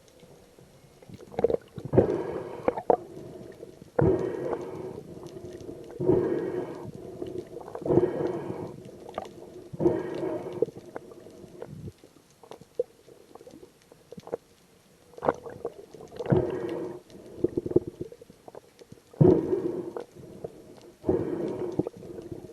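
Whale calls: a series of pitched, ghostly calls about a second long, coming roughly every two seconds with a pause midway, over a faint steady hum.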